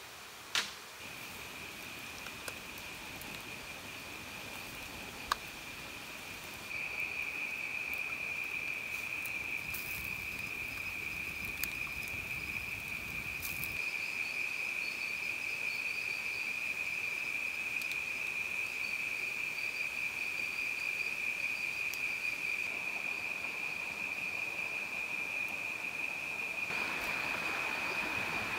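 Forest insects droning in one steady high-pitched note, stepping louder about seven seconds in. A few sharp clicks come through, the loudest just after the start, and a broader hiss rises near the end.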